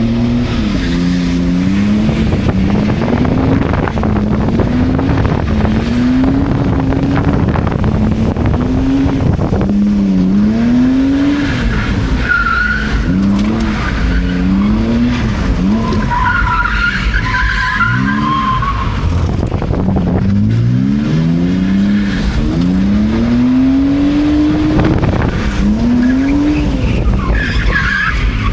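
BMW E46's engine revving up and falling back over and over while the car is slid around on a wet road. Short tire squeals come a few times partway through.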